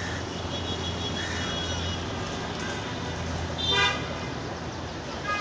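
City road traffic with a steady engine hum. A single short vehicle horn honk about three and a half seconds in is the loudest sound, with fainter honks earlier.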